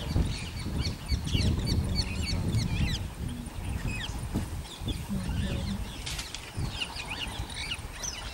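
Many birds chirping and calling in short, quick rising and falling notes, over a steady low rumbling noise.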